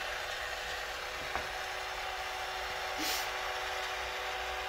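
Milwaukee M12 cordless caulk gun's brushed motor running steadily, driving the plunger at speed setting 6 into a half-full tube. There is a sharp click a little over a second in and a brief hiss about three seconds in.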